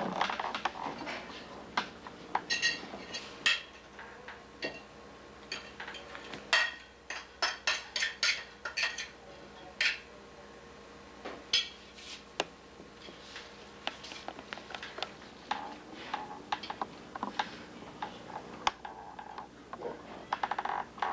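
Cutlery clinking and scraping against plates and dishes as people eat, a scatter of irregular clinks, some ringing briefly, with a thicker run of clinks about seven to nine seconds in.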